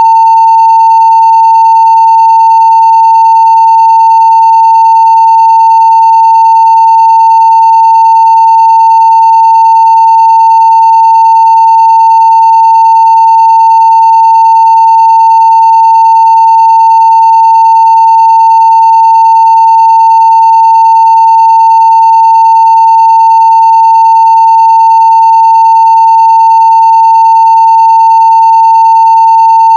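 A 900 Hz sine-wave test tone at full scale (0 dB), one steady unchanging pitch held without a break.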